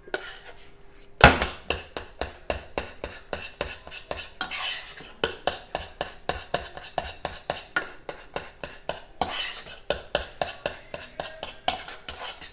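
Metal spoon stirring thick strawberry chia jam in a stainless steel saucepan. It clinks against the pan about three times a second with short scrapes in between, starting with a hard knock about a second in.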